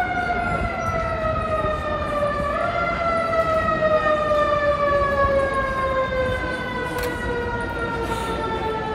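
A siren with a slowly falling pitch that keeps dropping throughout, briefly stepping up about two and a half seconds in, over a steady low rumble.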